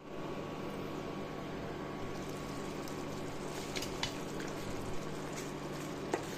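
Curry chicken simmering in a stainless steel pot: a steady hiss and low hum with a few faint pops and clicks, and a wooden spoon knocking the pot once near the end.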